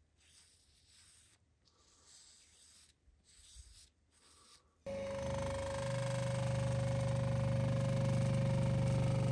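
Faint rubbing of gloved fingers spreading polishing paste over a steel hammer head, then, about halfway through, a bench buffing machine cuts in suddenly, its motor running steadily with a low hum and a steady whine while the hammer head is held to the spinning buffing wheel.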